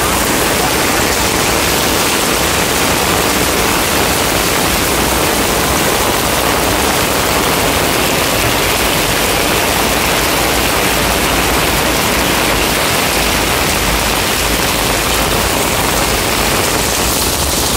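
Heavy amber-rainstorm downpour pouring steadily onto paved ground and steps, a dense, even rush of rain with no breaks.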